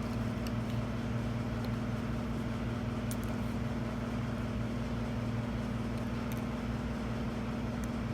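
Steady low background hum with a few faint small clicks scattered through it.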